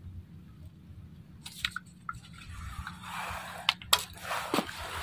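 Handling noises from a freshly caught red snapper being dealt with: a few small clicks, then, from a little past halfway, wet rustling with two sharp clicks and a squish.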